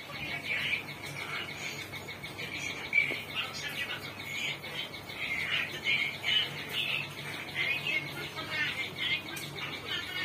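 Birds chirping: many short, high chirps repeating throughout.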